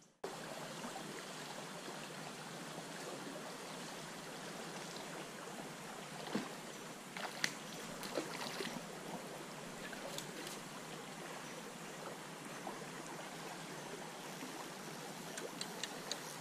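Shallow gravel-bottomed stream flowing, a steady rushing of water, with a few short faint clicks and splashes here and there.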